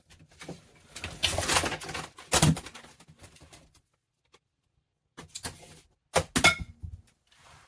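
Rustling and clicking of a power cable and a small plastic PoE injector being handled and plugged in, in two short clusters.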